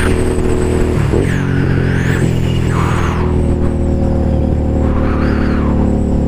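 Suzuki SV650N's V-twin engine running under way, heard from the rider's seat. Its note dips briefly about a second in and shifts again a little after three seconds, over steady wind and road noise.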